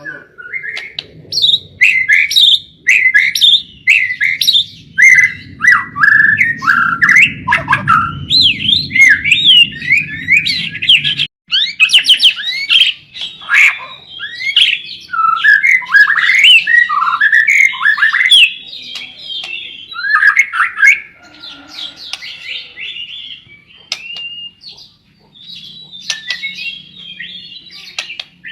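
White-rumped shama singing a fast, varied run of whistled phrases, rising and falling glides and chattering notes, with hardly a pause.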